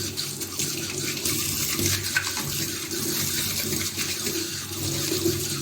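Tap water running steadily over a washing machine's mesh filter as it is rinsed clean.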